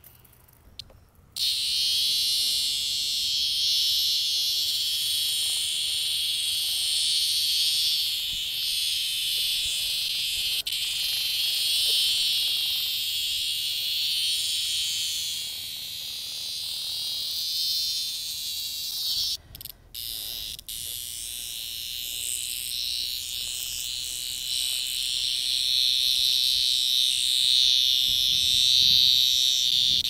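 Chorus of cicadas buzzing, a loud, high, steady drone. It starts about a second and a half in and breaks off briefly twice about two-thirds of the way through.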